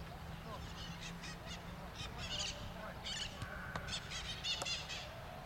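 Birds calling in the open: a string of harsh, quick repeated calls, coming in bunches of several notes.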